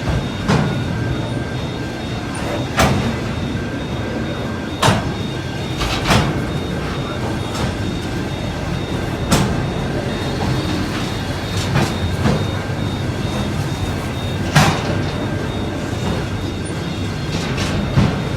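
Train running on the rails: a steady rumble broken by sharp clacks every second or two, at uneven spacing.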